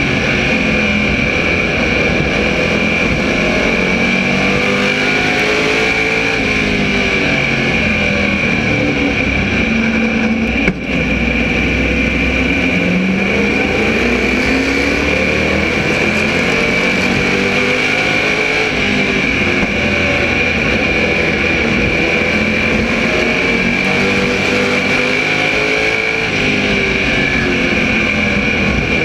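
Onboard sound of an SK Modified race car's small-block V8 at racing speed, its pitch rising and falling repeatedly as it accelerates out of the turns and lifts into them. A steady high whine runs over it, and there is a single short knock about eleven seconds in.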